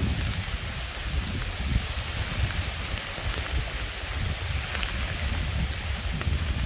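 Rain falling steadily onto a river's surface, an even hiss, with a low, uneven rumble underneath.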